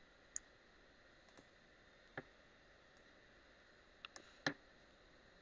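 A few isolated computer mouse clicks over near silence, the loudest about four and a half seconds in.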